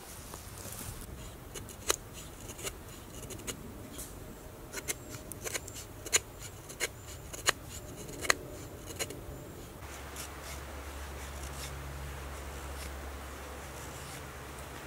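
Survival Lilly APO-1 fixed-blade bushcraft knife shaving curls off a feather stick: a string of short, sharp scraping strokes at an uneven pace. At about ten seconds in the strokes stop and a steady low hum with a faint hiss takes over.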